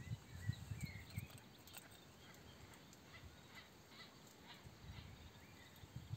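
Faint bird chirps over a quiet background hiss, with a few soft low thumps in the first second.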